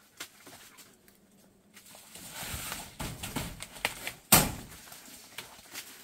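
Leafy vines rustling as they are pulled down off a wire trellis, building up about two seconds in, with a sharp snap or knock about four seconds in as the loudest sound.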